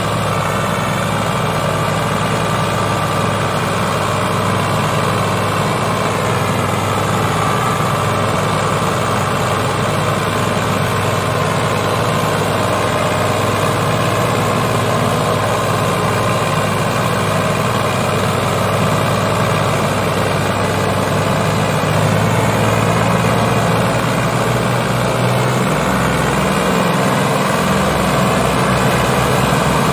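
Ford 3610 tractor's three-cylinder diesel engine running steadily under heavy load as it pulls a loaded sugarcane trolley, a little louder about two-thirds of the way in.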